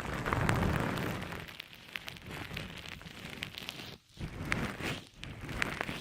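Soft squishy object squeezed and pressed in repeated strokes, giving a dense, wet-sounding crackle full of small clicks. The sound drops out briefly twice, about four and five seconds in.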